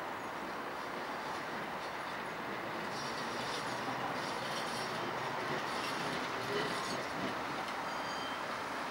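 Vintage tram rolling along street tracks, a steady running rumble of wheels on rail, with a few high-pitched wheel squeals in the middle.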